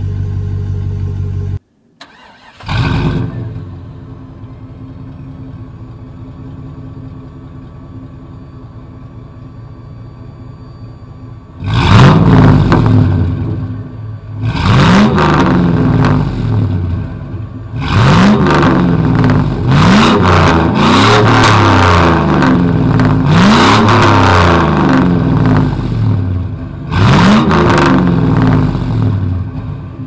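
Chevrolet Silverado Z71 V8 running a Flowmaster Super 10 chambered muffler with no catalytic converters. It starts up with a loud surge and settles into a steady idle, and from about twelve seconds in it is revved hard again and again, rising and falling, with loud stretches near the end. It is preceded by about a second and a half of another truck idling before a cut.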